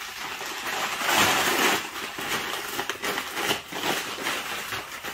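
A yellow padded paper mailer being ripped open by hand. A long tearing rip comes about a second in, followed by continued rustling and crackling of paper and plastic as the package is pulled out.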